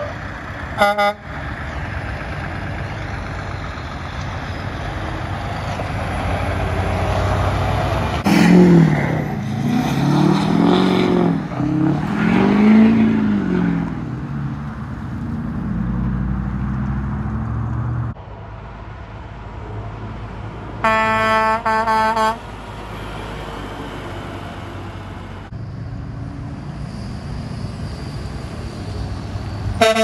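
Heavy diesel trucks passing on a gravel road. A short truck air-horn toot comes about a second in. Midway a truck's engine swells up and down in pitch several times as it goes by close. About two-thirds of the way through there is a second air-horn blast lasting a second or two, and another horn starts right at the end.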